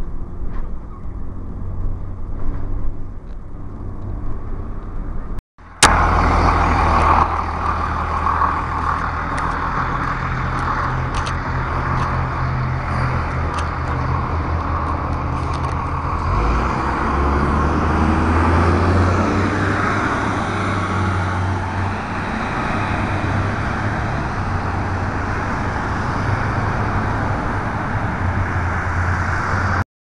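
Cummins ISC diesel engine of a 2002 Blue Bird CS city bus running. The sound cuts out briefly about five seconds in and comes back louder, and the engine note changes around sixteen seconds in.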